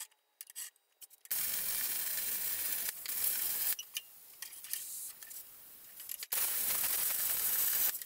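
A handheld power shear trimming the edge of a sheet-metal panel: a steady hissing cut for about two and a half seconds, a pause with lighter sounds, then a second cut near the end.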